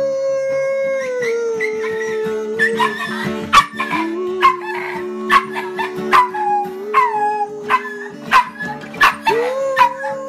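Poodle puppy howling along to music in long held notes that step down in pitch and rise again near the end. Behind it, an acoustic guitar in open D tuning is strummed in a steady rhythm.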